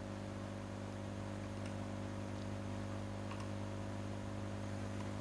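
Steady low electrical hum on the recording, with a few faint clicks of a computer mouse.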